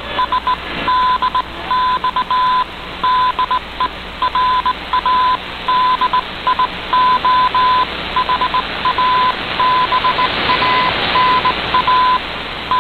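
Morse code: a single tone of about 1 kHz keyed in dots and dashes, heard through a shortwave AM receiver over steady hiss. The hiss swells briefly near the end as the signal fades.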